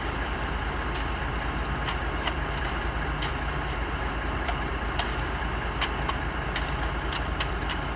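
A heavy concrete mixer truck's diesel engine runs steadily at idle. Short, sharp high clicks come now and then over it.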